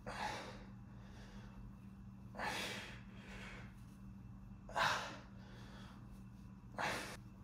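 A man breathing out hard with each rep while pressing heavy dumbbells from the floor: four short, forceful exhalations about two seconds apart.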